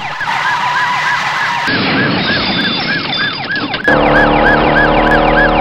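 Police siren yelping fast, sweeping up and down about three times a second. A steady low drone joins about four seconds in.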